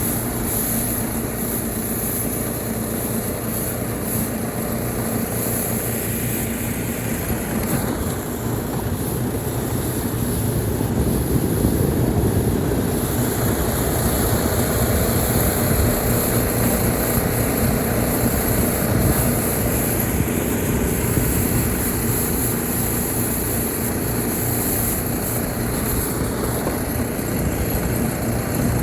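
Small engine of a home-built track sled running steadily, getting louder about ten seconds in.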